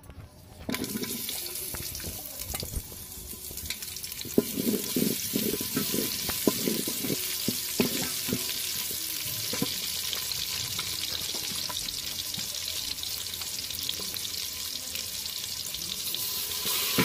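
Sliced onions, potatoes and green chillies frying in hot mustard oil in an aluminium pot, with a steady sizzle that starts suddenly about a second in as they hit the oil. A wooden spatula knocks and scrapes against the pot as they are stirred.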